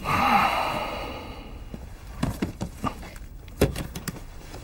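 Packed luggage being handled: a rustling swish that fades over about a second and a half, then a run of light clicks and knocks, the sharpest about three and a half seconds in.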